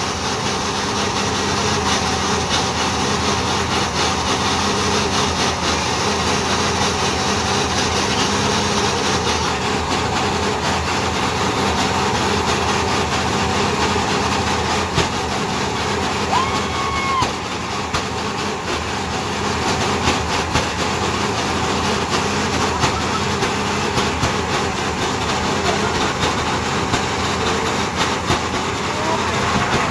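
A van's rear tire spinning in a long, sustained burnout, with the engine held at high revs. The mix of engine and tire noise is loud and steady.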